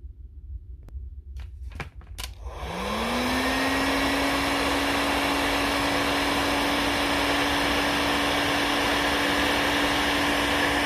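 A few clicks, then a heat gun switched on: its fan motor spins up quickly and runs steadily with a loud rush of air. It is heating solder-seal connectors to melt the solder and shrink the sleeve onto the joined wires.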